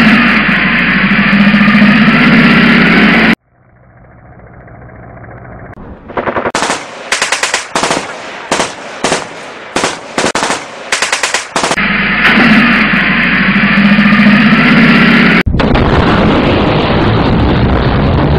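Battle sound effects: a steady tank-engine rumble that cuts off suddenly about three seconds in. After a short quiet stretch come several rapid bursts of machine-gun fire, then the engine rumble returns, turning into a harsher, noisier sound near the end.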